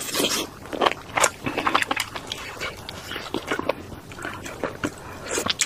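Close-miked eating sounds: wet chewing and slurping of enoki mushrooms, a quick, uneven run of mouth smacks and clicks, with bites taken off a skewer later on.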